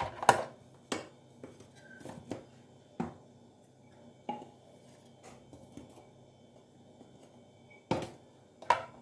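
A few scattered light knocks and clinks of kitchenware being handled: a drinking glass used as a measuring cup and a wire whisk against a plastic mixing bowl and containers. The loudest knock comes just after the start and two more come close together near the end.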